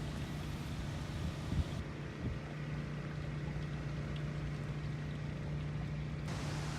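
Pressure washer running steadily, a constant low engine hum under the spray noise.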